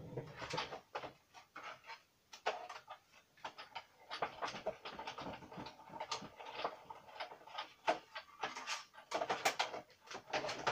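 Irregular light clicks, taps and rustles of small objects being handled, with short pauses between them.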